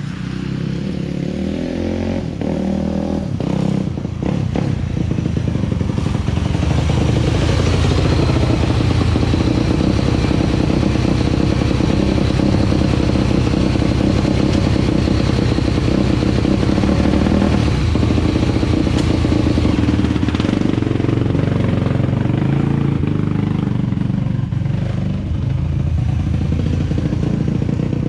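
2001 Yamaha YZ426F's single-cylinder four-stroke engine running steadily, rebuilt with a new cam chain. It grows louder over the first several seconds and eases off a little after about 20 seconds.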